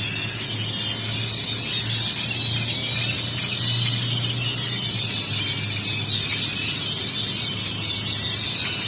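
Dense chorus of many birds calling at dusk, a steady mass of overlapping high chirps and squeaks, over a low steady hum.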